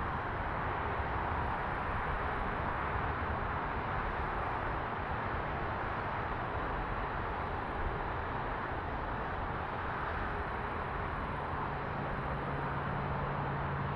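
Steady street noise with the rush of passing traffic; a low steady engine-like hum joins about twelve seconds in.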